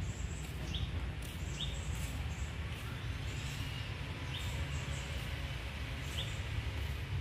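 Steady low outdoor background rumble, with a few short, high bird chirps spaced a second or more apart.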